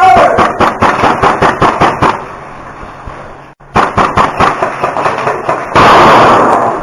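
Rapid airsoft gunfire: quick runs of sharp snapping shots, several a second, in two bursts with a short lull between. A loud rushing noise of about a second follows near the end.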